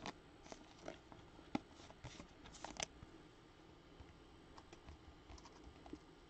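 Faint clicks and soft taps of trading cards being handled and set into a plastic card stand, mostly in the first three seconds.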